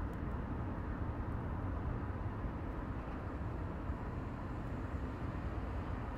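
Steady city street traffic noise, an even wash of passing vehicles, mostly low in pitch, with no single event standing out.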